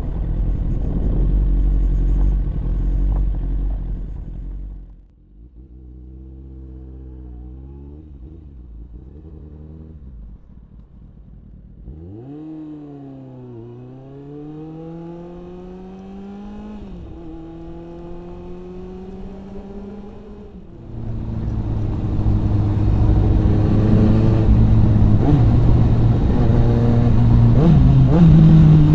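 Motorcycle engine heard from a helmet camera, with wind noise on the microphone. Loud wind and engine at first; then a quieter stretch where the engine revs up and down, its pitch rising and falling; then loud wind and engine return about eight seconds from the end.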